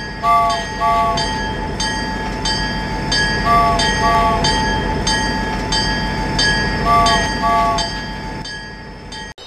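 Toy steam train's electronic sound effect: rhythmic chuffing about twice a second over a steady electronic hum, with a short double whistle toot sounding three times.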